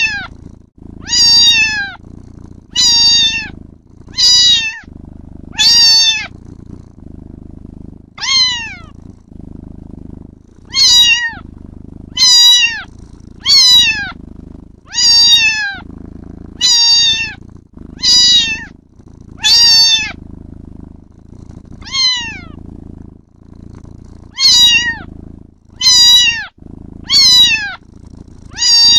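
Kitten meowing over and over: short calls that fall in pitch, about one a second, with a few pauses of one to two seconds. A steady low rumble runs underneath.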